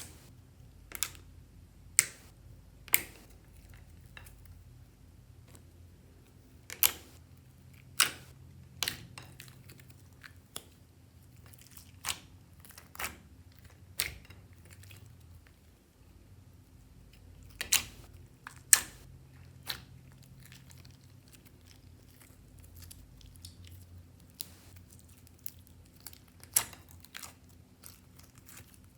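Hands kneading and folding slime mixed with makeup and clay, giving sharp clicks and pops at irregular intervals, a dozen or so loud ones among softer crackles.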